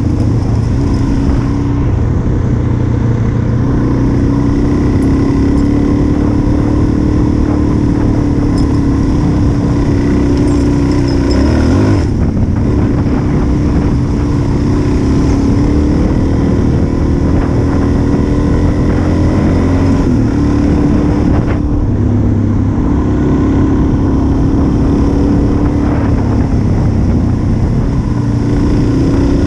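Single-cylinder four-stroke dual-sport motorcycle engine running under way on a gravel road, with wind rush over the microphone. The throttle eases off and the engine picks up again about twelve seconds in, and again about twenty-two seconds in.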